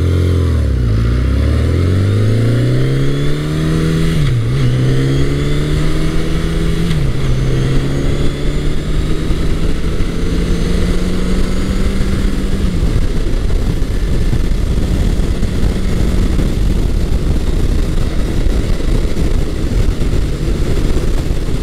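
A 1980 Honda CB900 Custom's inline-four engine accelerating hard from low speed, its pitch climbing and dipping sharply at two gear changes about four and seven seconds in. It then rises more slowly, drops a step just before thirteen seconds in, and runs at a steady cruise under wind and road noise.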